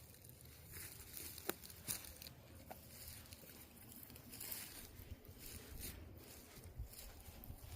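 Faint footsteps crunching on a dry trail, irregular scattered steps over a low rumble of wind or handling on the microphone.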